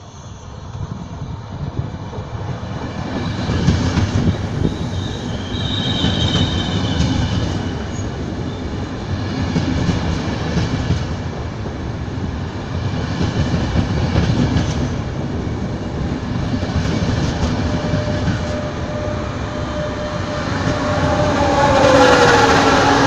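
Regional push-pull train passing close at speed: the running noise of its coaches and wheels builds over the first few seconds and then holds steady, with a brief high squeal about six seconds in. Near the end the electric locomotive pushing at the rear goes by loudest, with a whine falling in pitch as it passes.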